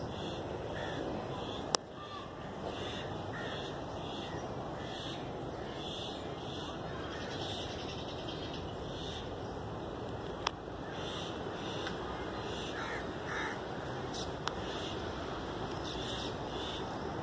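Birds calling over and over above a steady outdoor background noise, broken by three sharp clicks.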